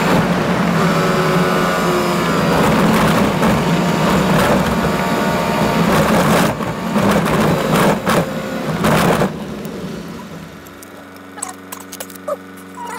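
Toyota Land Cruiser driving on a rough gravel track, heard from inside the cabin: tyre and road noise with crackling stones and frequent knocks. After about nine seconds it grows quieter, leaving a steadier hum with occasional clicks.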